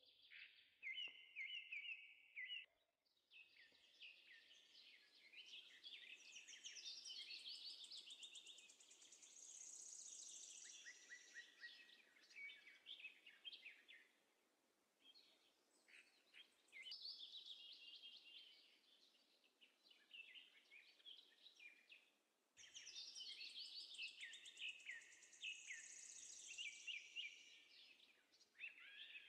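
Faint chorus of small songbirds chirping and twittering, in quick overlapping trills that come in three long bouts with short lulls between them.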